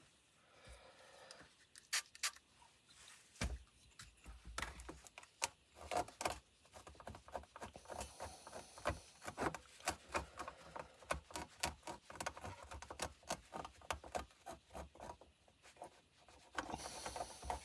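Irregular light clicks, taps and rubbing of hands and tools working on a circuit board.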